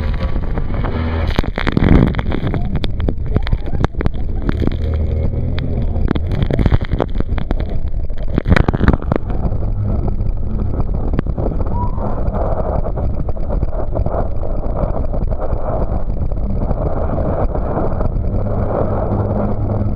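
Raft running a big whitewater rapid: water rushing and waves slapping and breaking over the boat, with many hard splashes in the first half, over the steady low drone of an outboard motor. About halfway through the splashes stop and the water settles into an even rush.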